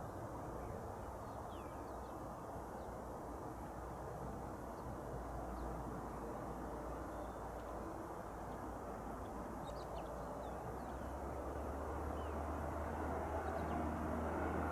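Outdoor airfield ambience: a steady, distant low rumble with faint bird chirps over it. Near the end a low engine hum comes up slightly.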